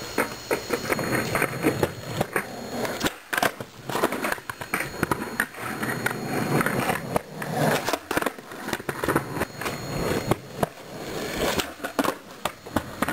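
Skateboard wheels rolling over rough concrete, with several sharp clacks of the board being popped and slapping down as flip tricks are tried.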